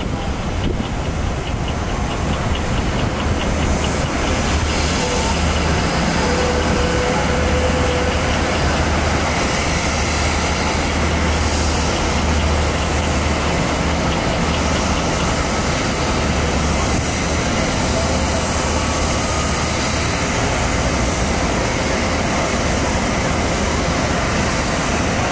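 Airbus A350-1000's Rolls-Royce Trent XWB jet engines heard from a distance as the airliner decelerates down the runway after landing: a steady rushing noise over a low hum.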